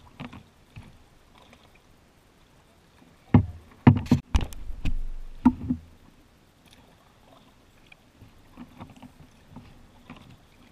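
Kayak paddling on calm water: faint paddle strokes and drips, with a cluster of sharp knocks and thumps against the boat from about three to six seconds in.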